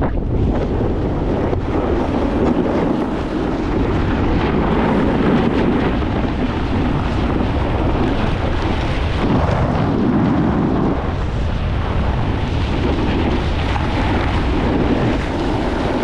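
Wind rushing over the microphone and a snowboard's edges scraping across icy snow during a run, a loud continuous rumble with no break.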